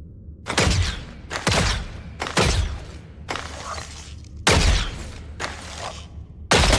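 Compound bow and arrow shot sound effect, played repeatedly about once a second, seven times in all. Each shot is a sharp snap with a quickly falling low thump and a short fading tail.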